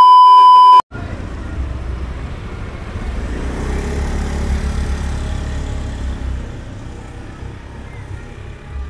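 A loud, steady test-tone beep lasting just under a second, laid over a colour-bars transition, then the steady low rumble of road traffic.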